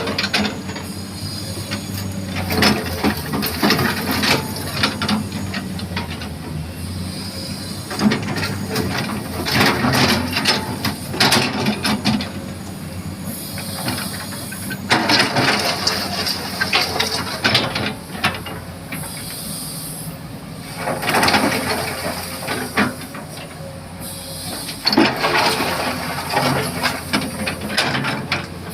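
Komatsu excavator's diesel engine running steadily, with repeated bursts of scraping and clatter every few seconds as the bucket scrapes mud.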